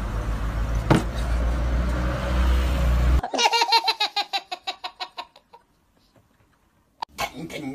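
Road traffic rumbling, with one sharp knock about a second in. After a sudden cut about three seconds in, a baby laughs in a fast string of high-pitched peals that fade out over about two seconds, followed by a short silence.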